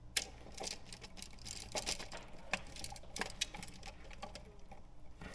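Irregular light clicks and ticks of a copper wire and electrical outlet being handled as the black wire is pushed into the outlet's back-wire terminal.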